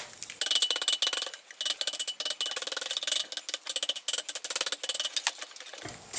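Rapid metallic clicking and scraping of small steel parts being worked against each other by hand.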